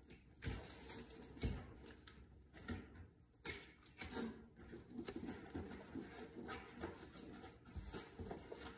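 Cardboard and glued foam being pressed and slid against a boat seat base: irregular rubbing and rustling with scattered light knocks.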